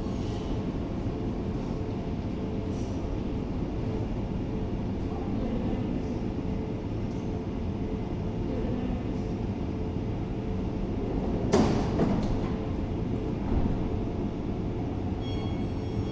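Oslo Metro MX3000 train running in the station with a steady low rumble, and a brief sharp clatter about eleven and a half seconds in.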